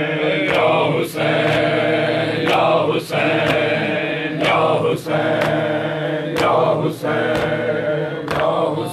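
A group of male mourners chanting a noha together in a sustained drone, with sharp rhythmic strikes in groups of three about half a second apart, each group coming round every two seconds or so, typical of matam chest-beating.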